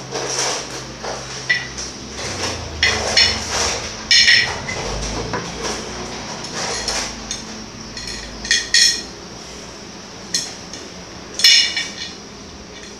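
Glass pan lid and its knob and screw hardware clinking and knocking while the knob is fitted and screwed onto the lid. Several sharp, ringing clinks stand out from quieter handling noise.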